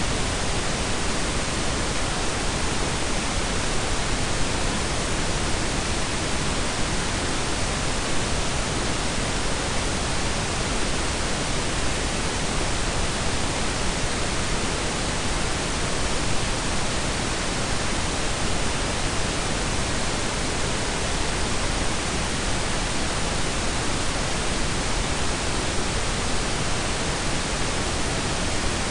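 Steady blended pink and brown noise: an even, unchanging hiss with a deep rumbling low end.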